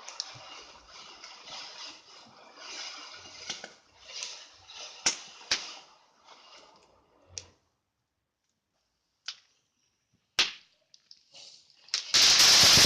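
Fireworks: a faint crackling with a few sharp pops and snaps, then, about a second before the end, a sudden loud hissing rush as a firework goes off.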